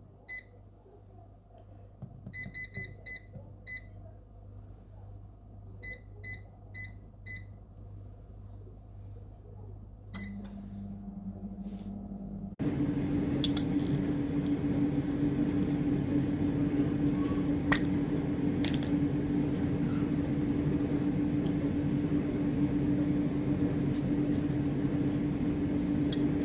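Air fryer control panel beeping as its buttons are pressed: a series of short, high beeps. About ten seconds in a low hum starts, and a couple of seconds later the fan comes on with a steady whirring hum that carries a strong low tone.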